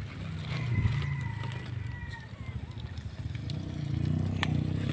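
A motor engine running steadily, its pitch rising near the end as it speeds up, with one sharp click just before the end.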